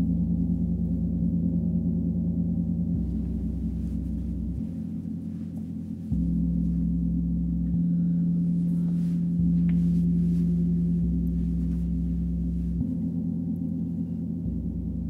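Two large hammered bronze gongs struck again and again with felt mallets, a fresh stroke about every second and a half, keeping up a continuous low, swelling drone.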